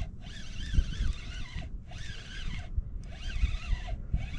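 Spinning reel whirring in repeated spells about a second long, each with a wavering high whine, as a big pickerel pulls against the bent rod.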